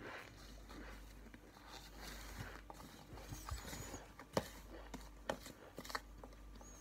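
Fingers rummaging through chunks of cornstarch in a plastic tub: soft scraping and crumbling, with a few sharp clicks of pieces knocking together or against the tub in the second half.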